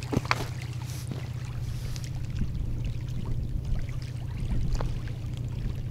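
A spinning reel's bail arm clicks shut just after the start. Under it runs a steady low rumble, with a few faint ticks later on.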